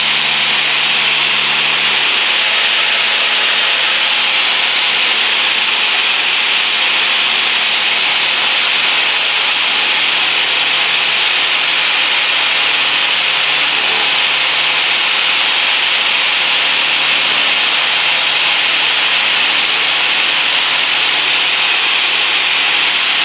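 Cabin noise of a Cessna 172P Skyhawk in flight: its four-cylinder Lycoming engine and propeller drone steadily under a strong, even hiss.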